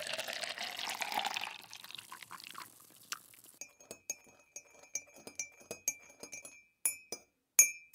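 Coffee being poured into a mug, then a metal spoon stirring in a ceramic mug and tapping its side with ringing clinks, several a second, with a few louder taps near the end.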